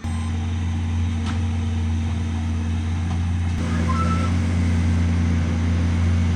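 Heavy engine running steadily with an even low hum, cutting off abruptly at the end.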